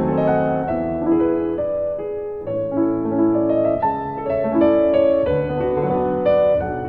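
Background piano music, a steady run of changing notes.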